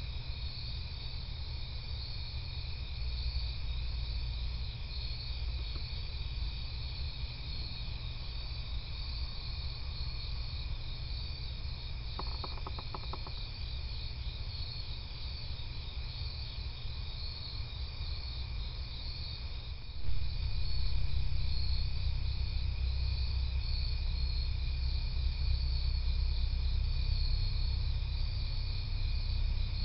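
Crickets chirping in a steady, pulsing night chorus, with a low rumble underneath that steps up louder about two-thirds of the way through. A brief run of rapid ticks sounds about twelve seconds in.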